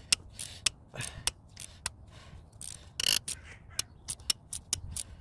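Ratchet wrench clicking in short, irregular strokes as it is worked back and forth on a seized glow plug, with a brief metal scrape about three seconds in.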